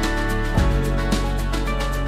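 Background music: sustained chords over a quick, steady beat, with a new bass note coming in about half a second in.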